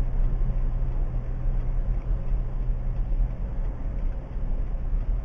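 Car driving at a steady speed on a paved road, heard from inside the cabin: a steady low hum of engine and tyre noise.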